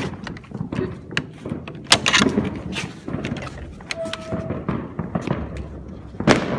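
Firecrackers going off irregularly: scattered sharp pops with louder bangs about two seconds in and near the end, over a low rumble.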